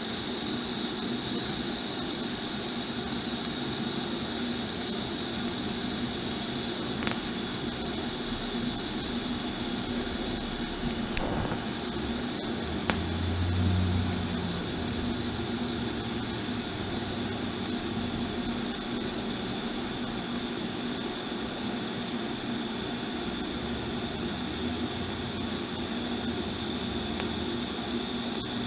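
A TIG welder running on a steel motorcycle frame: a steady hiss with a high whine. There are a couple of faint clicks and a brief low thump about halfway through.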